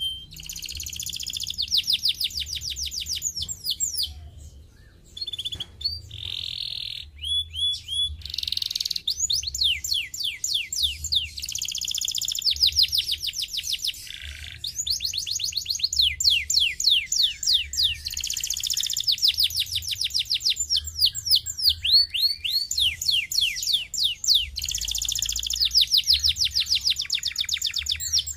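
Domestic canary singing a long song of rapid trills: phrases of quick, high, down-slurred notes repeated many times a second, with short breaks between phrases.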